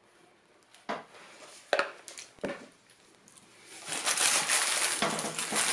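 Three sharp clicks of a knife against a china cake plate while cream is spread. Then, from about four seconds in, a louder continuous crackling rustle with many small clicks.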